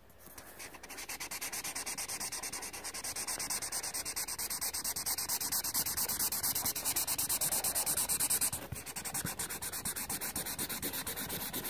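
Felt-tip magic-ink marker scribbling fast back and forth on a colouring-book page, a scratchy rubbing of nib on paper at about six strokes a second. It breaks off briefly about two-thirds of the way through and starts again a little quieter.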